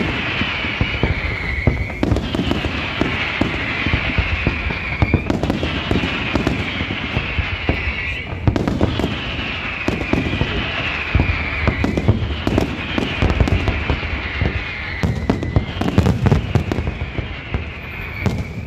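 A Senatore Fireworks aerial display going off continuously: dense crackling and popping from bursting shells over low booms, with a hissing sound that falls in pitch repeating every couple of seconds.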